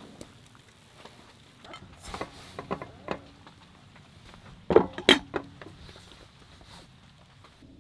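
Metal cookware clinking and clanking as a smaller frying pan is set on top of a sandwich in a frying pan and a lid is placed over it. A scatter of light knocks comes first, then two loud clanks about five seconds in.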